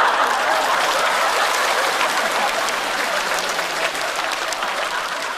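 Studio audience applauding in response to a punchline, a dense wash of clapping that slowly eases off.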